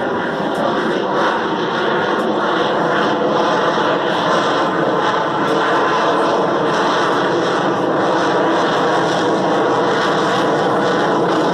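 Aircraft engine noise at an air show: a loud, steady drone.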